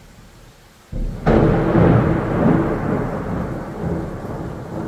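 Thunderclap: a sudden crack about a second in, then a long rumble that slowly dies away, over steady rain.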